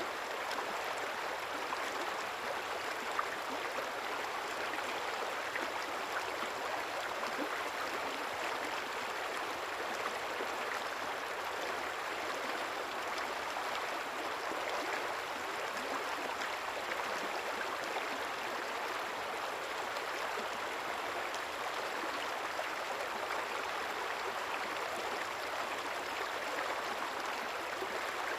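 A river or stream flowing steadily, an even rushing and babbling of water without pause.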